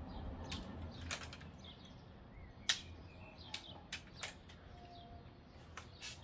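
Scattered sharp plastic clicks and clacks from a LEGO brick-built Winchester 1887 lever-action toy gun as it is handled and swung round, about eight in all, the loudest a single clack about two and a half seconds in.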